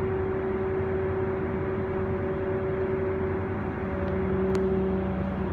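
Steady electrical hum of a hydroelectric plant's medium-voltage switchgear room, a low drone with a few held tones over an even rushing noise. A deeper tone joins a little past halfway, and there is one faint click about four and a half seconds in.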